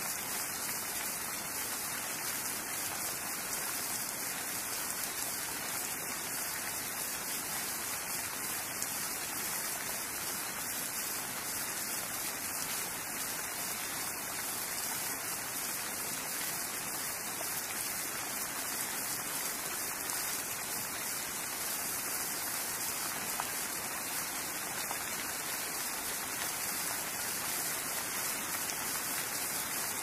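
Steady rain, an even hiss heaviest in the high end, with no single drops standing out.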